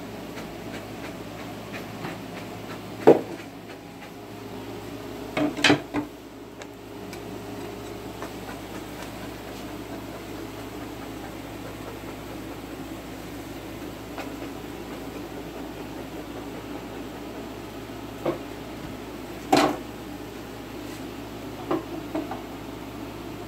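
Wooden hive parts and a metal hive tool knocking and clunking as frames and boards are handled in a wooden hive box. There are scattered sharp knocks, the loudest about three seconds in, over a steady low hum.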